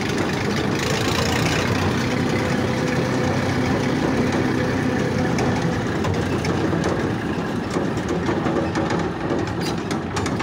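Two-wheel tractor (power tiller) with a single-cylinder diesel engine chugging steadily while pulling a loaded trailer along a rough dirt track.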